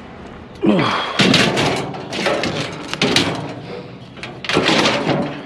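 Scrap metal being handled and loaded: a short screeching scrape, then several loud clanks and clatters of metal striking metal, in three bouts.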